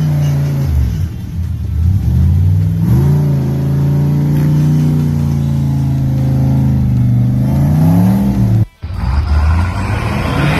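Off-road 4WD ute's engine revving under load as it drives through deep mud: the revs dip, climb and hold steady, then rise again. It cuts off abruptly near the end, and another vehicle's engine follows.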